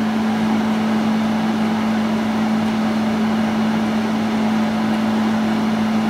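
Carrier window air conditioner running normally, its fan blowing and compressor on: a steady hum over an even rush of air.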